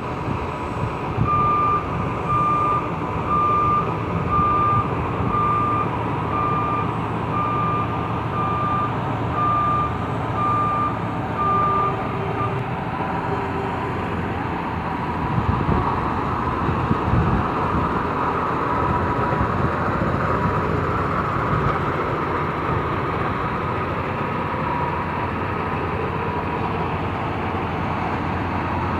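Heavy truck crane's reversing alarm beeping about once a second, stopping about twelve seconds in, over its diesel engine running steadily throughout.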